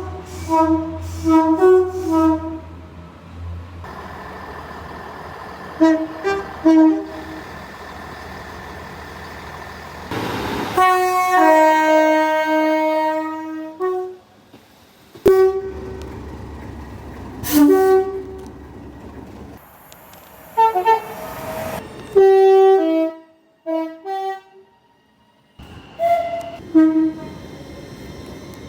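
Train horns sounding in a run of spliced recordings: mostly short toots in quick succession, with one longer blast of about three seconds near the middle that steps down in pitch. A low engine rumble sits under the first few seconds.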